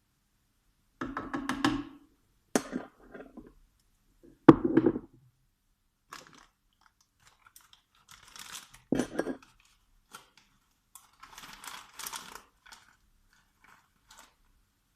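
Kitchen handling noises: a series of knocks and thunks with some scraping in between, the loudest thump about four and a half seconds in.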